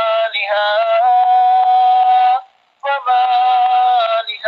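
Quran recitation in melodic tilawah style: a male reciter holds long, high, ornamented notes, the pitch stepping and wavering. He breaks off briefly about two and a half seconds in, then resumes on another long held note.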